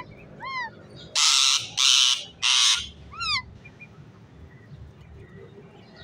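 Indian ringneck parrots calling: a short rising-and-falling call, then three loud harsh screeches in quick succession about a second in, and one more short rising-and-falling call.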